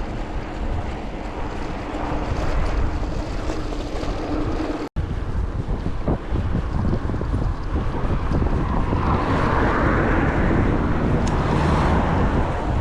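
Wind buffeting the microphone, a steady low rumble with hiss, broken by a momentary dropout about five seconds in.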